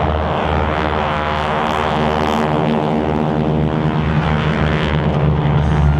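T-28 Trojan's radial piston engine and propeller during an aerobatic display, a loud, steady drone.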